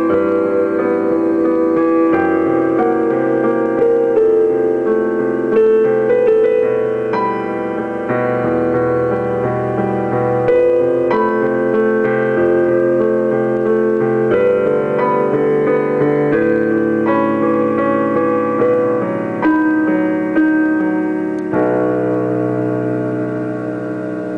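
Digital piano played with both hands: a melody over sustained chords that change about every second, the playing easing a little in loudness near the end.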